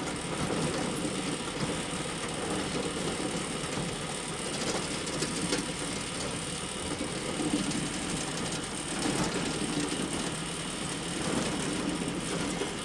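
Hay bale elevator running steadily: a continuous mechanical rattle of its conveyor and drive, with small irregular clicks throughout.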